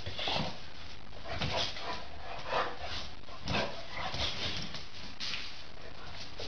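A dog barking and whimpering in short, separate calls, roughly one a second, while it leaps about excitedly.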